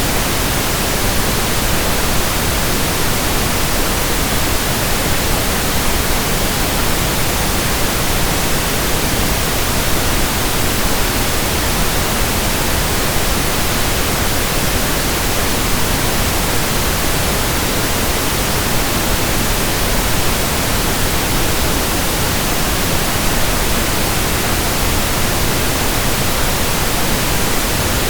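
Steady pink noise, an even, unchanging hiss with no breaks or events.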